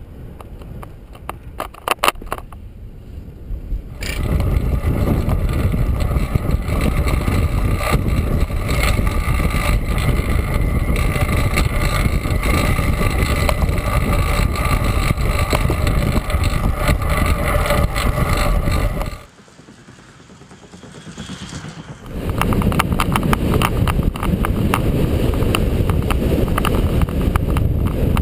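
Riding noise from a camera on a bicycle lapping a concrete velodrome track: wind and tyre rush with a faint steady whine through it. It is quieter with a few clicks for the first four seconds, and drops away for about three seconds two-thirds of the way through before coming back.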